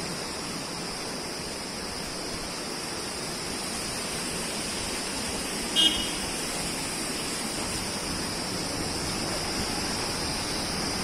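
Steady rushing noise of a mountain stream (nala), with a single short high-pitched beep about six seconds in.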